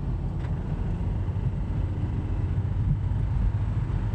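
2003 Toyota Celica GT's 1.8-litre four-cylinder engine running under heavier throttle while driving, a steady low rumble. At this throttle the engine knock is much less audible.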